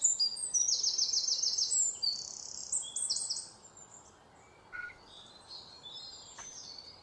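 A small bird singing, with rapid runs of high, quickly repeated chirps for the first few seconds, then fainter scattered notes.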